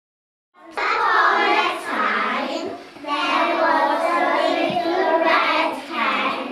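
A class of young children chanting a story together in unison. It starts about half a second in, after silence.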